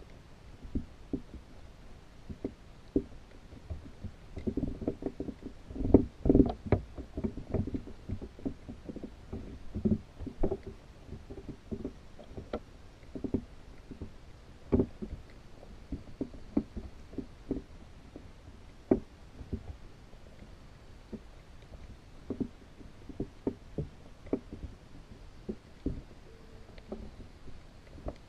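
Irregular dull knocks and taps heard underwater through a GoPro housing inside a pinfish trap, with a busy flurry of louder knocks about five to seven seconds in.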